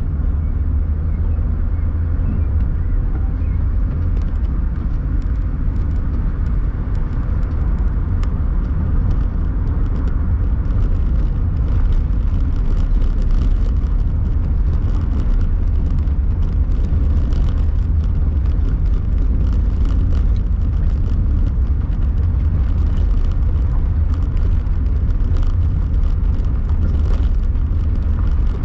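Steady low road and engine rumble of a car, heard from inside the cabin as it drives a narrow rural road, with many small scattered clicks and rattles.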